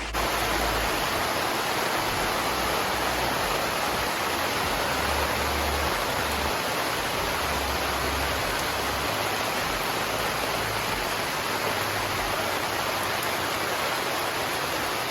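Heavy rain pouring down, a steady hiss with no letup.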